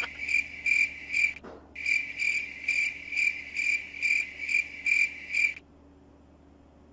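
Cricket chirping, a short high-pitched pulse about three times a second with a brief break early on, cutting off abruptly about five and a half seconds in.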